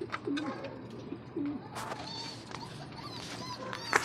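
Domestic pigeons cooing low, twice in the first second and a half, with a run of high chirps in the middle and a sharp knock near the end.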